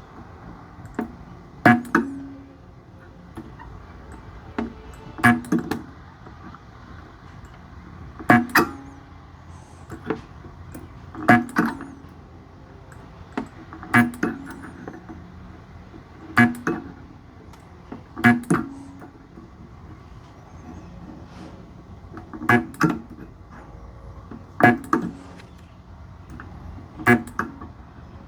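Sunko 709A spot welder firing pulses through 0.15 mm nickel strip onto 18650 cells: pairs of sharp cracks about a third of a second apart, repeating every two to three seconds as the strip is welded spot by spot.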